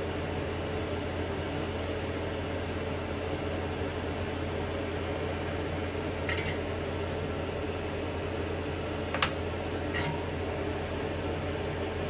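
Steady fan-like hum with hiss, broken by three light clicks of parts being handled on the workbench, the sharpest about nine seconds in.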